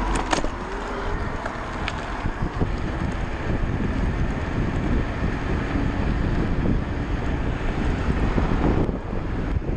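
Wind buffeting the microphone of a rider on a moving electric bike, with a steady low rumble and a couple of sharp clicks in the first two seconds.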